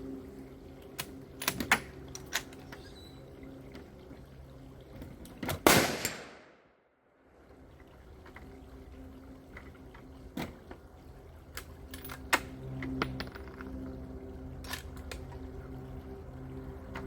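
A single Tikka T3x rifle shot about six seconds in, the loudest sound, followed by a brief drop to near silence. Scattered clicks and knocks of rifle handling come before and after, over a steady low hum.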